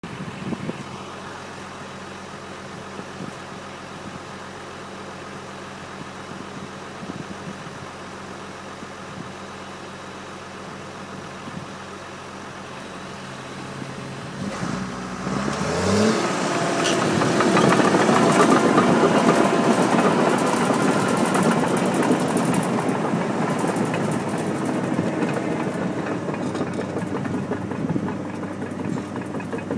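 John Deere 750J crawler dozer's diesel engine idling steadily, then revving up about halfway through and running loud at high revs for the rest.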